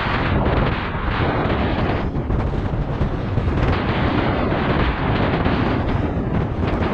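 Strong wind buffeting the microphone, a loud steady rumble with no let-up.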